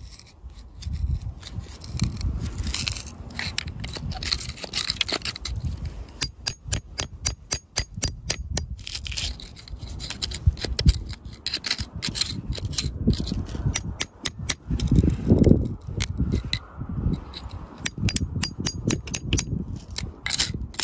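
Metal pick scraping and prying through gritty soil and gravel around an amethyst crystal, with many small clicks and scratches of grit and pebbles, and now and then a heavier dull rub as the tool pushes the dirt.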